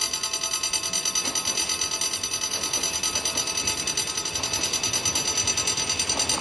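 Railway level-crossing warning bell ringing continuously and fast, about six strokes a second: a train is approaching the crossing.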